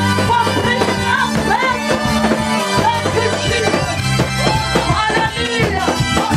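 Live gospel praise-and-worship music: voices singing a melody over a drum kit and held low notes.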